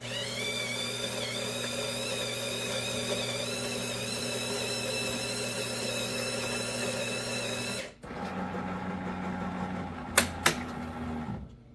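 Terra Kaffe TK-02 super-automatic espresso machine starting a latte: its built-in grinder motor whines up and runs steadily for about eight seconds, then cuts out. A lower steady hum follows, with two sharp clicks near the end.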